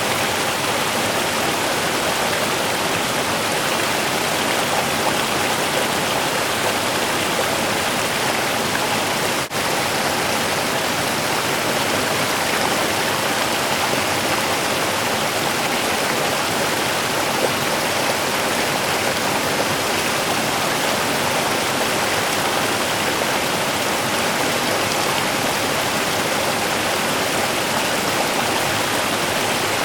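Small river running steadily, a continuous even rush of water, with a split-second dip in level about a third of the way in.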